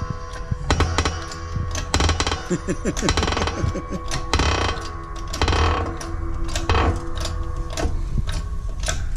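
Hand-pumped 6-ton hydraulic shop press working against a tensioner pulley, with repeated irregular clicks and metal knocks as the old bearings are forced out.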